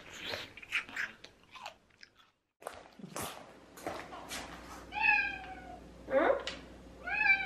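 Someone chewing for the first two seconds, then a domestic cat meowing three times about a second apart, the calls sliding in pitch, as it begs around its owner's feet at churu treat time.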